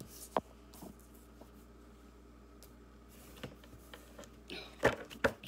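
Tarot cards being handled on a wooden tabletop: a soft tap about half a second in, then a short slide and two sharp taps near the end, with quiet room tone between.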